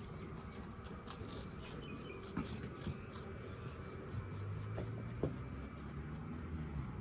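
Faint crisp crunching and nibbling of a rabbit chewing food, with a few soft knocks and a low hum coming in about halfway through.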